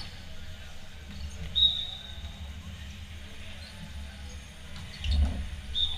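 Sports shoes squeaking briefly on an indoor court floor, twice, about a second and a half in and near the end, with a dull thump about five seconds in, over a steady low hall rumble.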